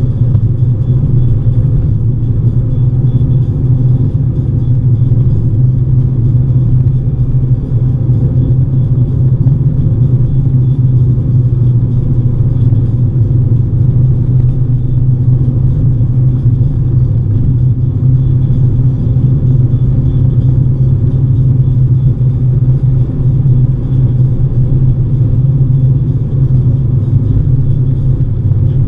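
Steady low rumble of a car driving at speed on a highway, with road and engine noise heard from inside the car.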